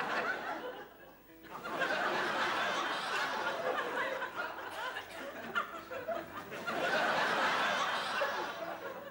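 Studio audience laughing, swelling up about a second and a half in and again near the end.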